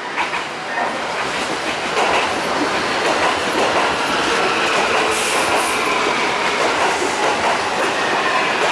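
Kintetsu commuter electric train running past at close range, its wheels clattering over rail joints and points, with a faint high whine over the noise. It grows louder about two seconds in as the cars come alongside.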